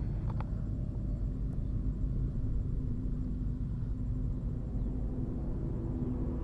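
Steady low rumble with a faint steady hum, like a vehicle running.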